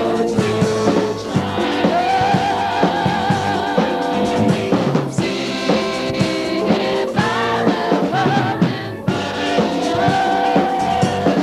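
A rock band playing live, with a woman singing the lead in long, wavering held notes over electric guitar and drums.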